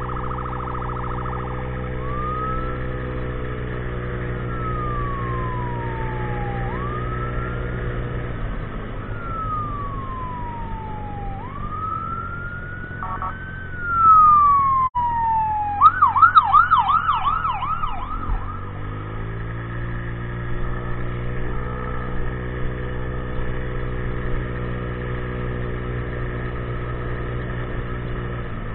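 An emergency vehicle siren goes by: a slow wail rising and falling about three times, then a fast yelp of about four sweeps a second, which is the loudest part. Under it a small scooter engine idles steadily, fading under the siren in the middle and coming back near the end.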